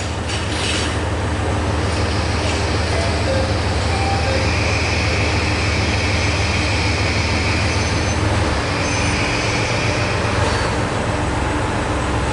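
ET122 diesel railcar's engine running with a steady low hum while the railcar stands at the platform. About eight seconds in, the hum changes as the railcar starts to pull away. A higher whine sounds alongside for several seconds in the middle.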